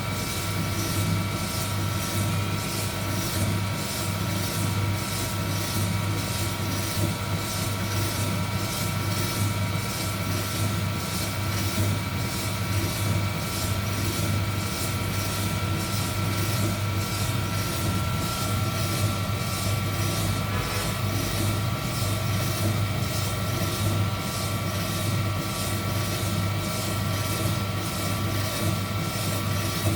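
Heat gun running steadily during a coffee roast: a constant fan-and-blower noise with a steady hum and whine, and a faint rhythmic pulse about twice a second.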